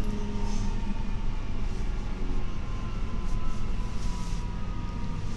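Queensland Rail SMU220 electric train running, heard inside the carriage: low rumble of wheels on rail with the thin whine of the traction motors and IGBT VVVF inverter (which the uploader takes to be a Bombardier unit), the whine slowly falling in pitch as the train slows.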